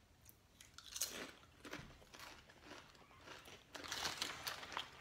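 Two people crunching and chewing Ruffles potato chips. Crisp crunches come in clusters about a second in and again around four seconds in.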